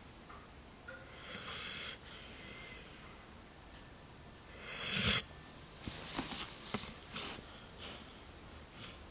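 A sleeping dog snoring, with a wheezy, whistling breath about a second in and a louder snore peaking about five seconds in, then several short snuffles and snorts.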